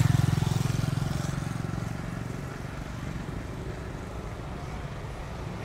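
Boeing 747-400F jet engines at low thrust on the runway, heard as a low, pulsing rumble that fades over the first two seconds and settles into a steady low hum, just before the takeoff roll.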